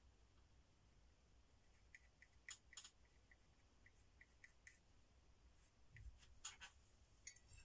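Faint scrapes and light ticks of a metal palette knife dabbing and dragging thick acrylic paint across the painting surface, with a run of small ticks in the middle and a few scratchy strokes near the end.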